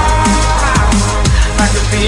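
Electronic music with a fast, even beat, a heavy bass line and gliding synth notes.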